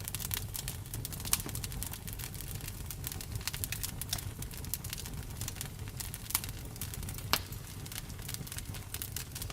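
Campfire crackling: many small sharp pops and snaps over a low steady rumble, with a few louder pops in the second half.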